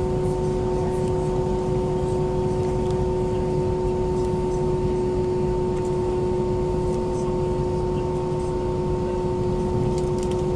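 Steady drone inside the cabin of an Airbus A320-232: a low rumble with a few constant humming tones over it, unchanging throughout.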